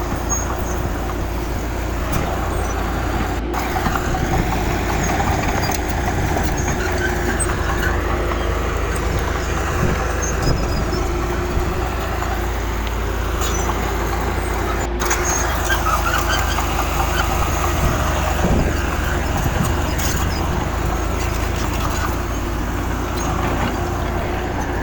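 Diesel engines of heavy earthmoving machinery running steadily, a constant engine drone with a low rumble. The sound drops out for an instant twice.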